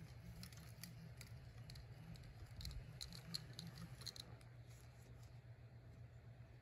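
Faint, distant hum of a small youth ATV's engine, steady throughout, with a scatter of light clicks in the first four seconds.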